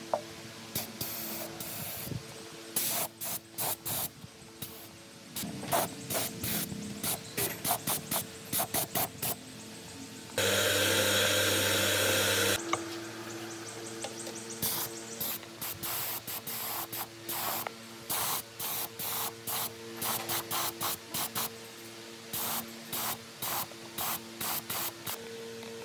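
Short hissing spray bursts in quick succession, with one longer burst of about two seconds midway, typical of spraying fan parts during restoration.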